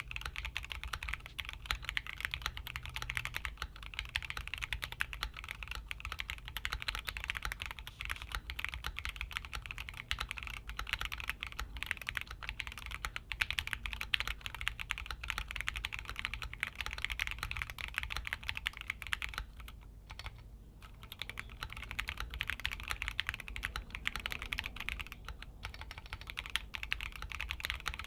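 Keychron Q1 Pro aluminium-bodied mechanical keyboard being typed on continuously, a quick run of key clacks, with a brief pause about twenty seconds in.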